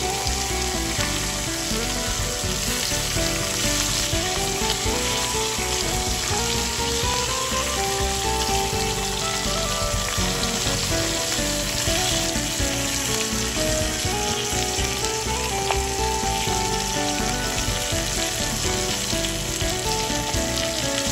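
Ribeye steak searing in bubbling butter and oil on a hot ridged grill pan: a steady, even sizzle.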